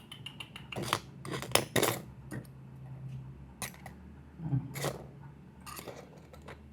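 Small metal tools and phone parts clicking and clinking as they are handled and set down on a hard work surface, in a series of irregular separate clicks, with a faint steady low hum underneath.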